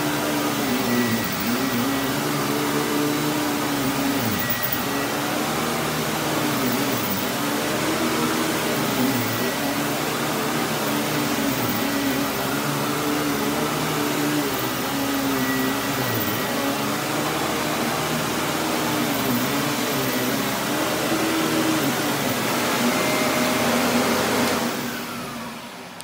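Hoover Commercial WindTunnel C1705-900 upright vacuum running as it is pushed back and forth over carpet, its motor note dipping and rising every second or two. The sound falls away near the end.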